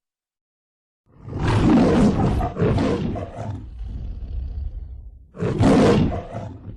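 Big-cat roar used as a creature sound effect. After about a second of silence comes a long, loud roar that slowly dies away, then a second, shorter roar near the end.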